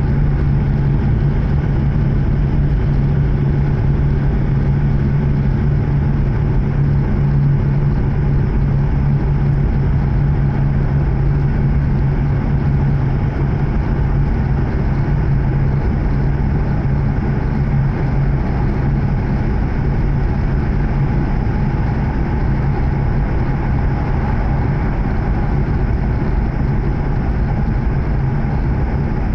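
Running noise inside a passenger car of an E7 series Shinkansen train at speed: a steady rumble with a constant low hum that stays unchanged throughout.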